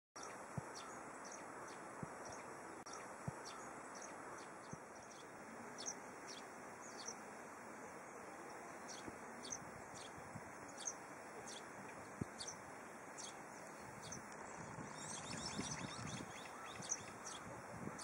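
Brown-eared bulbuls calling in short, high chirps, one or two a second, over a steady outdoor hiss. Near the end a rush of wind noise on the microphone rises.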